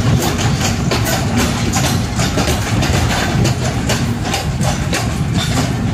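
Passenger train rolling slowly through a station, heard from an open carriage doorway. The diesel locomotive's engine rumbles steadily, and the wheels click irregularly over rail joints and points.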